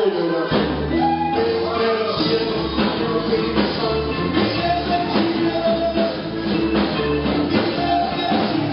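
Live worship band playing an upbeat song, with drum kit, a bass line changing notes about every half second, and singing.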